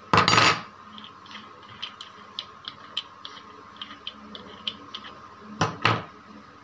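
Angle grinder's outer flange nut being turned off its threaded spindle by hand, with light metal clicks and ticks. There is a short loud clatter at the start and two sharp knocks near the end.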